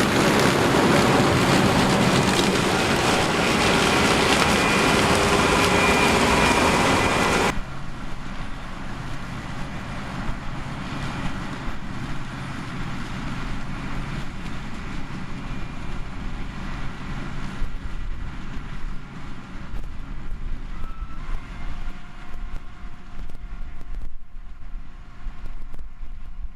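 Heavy farm machinery running. A loud, dense machine noise drops off sharply about seven and a half seconds in, to a quieter, steady engine drone.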